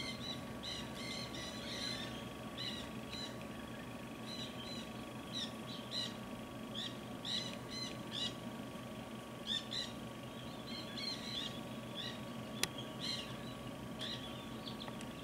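A flock of plumed whistling ducks giving short, high twittering whistles, many calls in quick succession throughout. A single sharp click sounds near the end.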